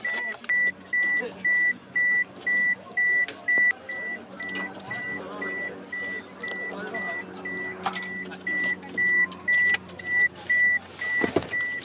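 An electronic beeper sounding a steady run of short, high beeps, about two a second, with scattered clicks and knocks from handling.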